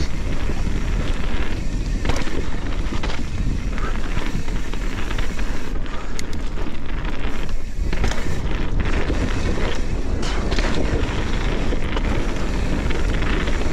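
Mountain bike descending a wet, muddy trail: heavy wind rumble on the camera microphone over tyre and frame rattle, with short knocks from bumps throughout.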